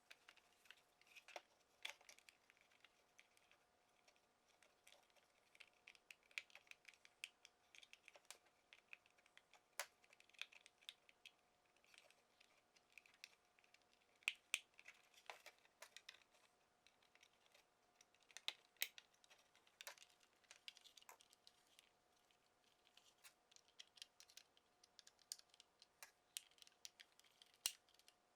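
Faint, irregular small clicks and ticks of hand work on a plastic car side-mirror housing being taken apart with a Torx driver, with a few sharper clicks.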